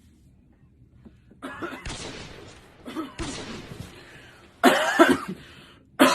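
A person coughing in a few separate bouts about a second and a half apart, the one about two-thirds of the way in the loudest.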